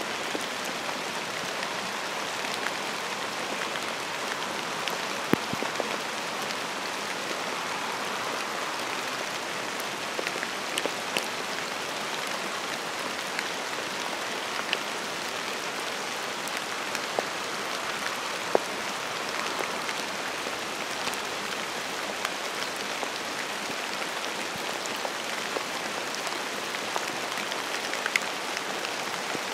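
Steady rain falling: a constant hiss with scattered sharper taps of single drops.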